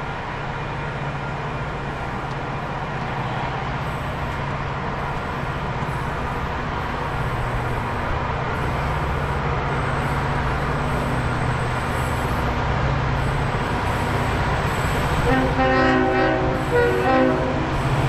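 Approaching C-class diesel-electric freight locomotives run with a low, steady engine rumble that grows gradually louder. About fifteen seconds in, the lead locomotive sounds its multi-tone air horn for about two seconds.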